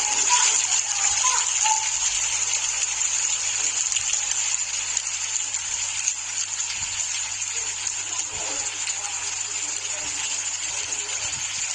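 Steady hiss of volcanic ash and grit falling like rain onto roofs and ground during an eruption ash fall.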